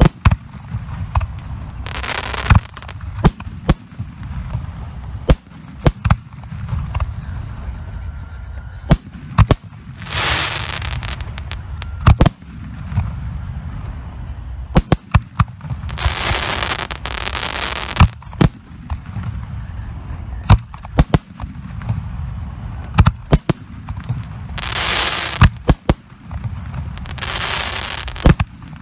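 Professional 3- and 4-inch aerial firework shells bursting overhead in quick succession: many sharp bangs, sometimes several in a second. Between them are short spells of hissing noise, over a steady low rumble.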